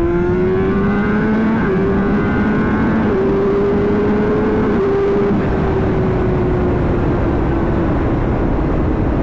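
Honda CBR600RR inline-four engine pulling hard, its pitch climbing with a few slight steps over the first few seconds, then easing slowly down, under steady wind rush.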